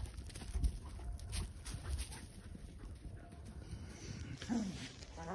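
German Shepherd puppies playing, with one short dog vocal sound that falls in pitch about four and a half seconds in, over a low rumble on the microphone.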